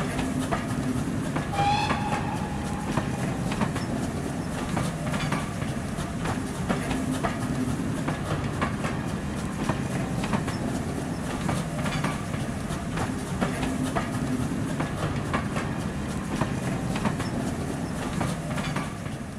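Railway passenger carriages rolling past, wheels clicking over the rail joints in a steady repeating pattern, with a brief high-pitched tone about two seconds in.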